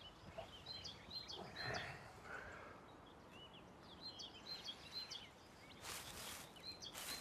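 Faint birds chirping in short, repeated calls, with rustling of straw and a woollen blanket as a sleeper stirs and sits up, louder near the end.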